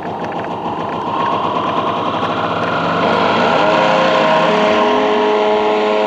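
Electronic music played loud through a car audio system's three-way front speakers: a build-up in which a noise sweep grows louder and held synth notes stack into a chord.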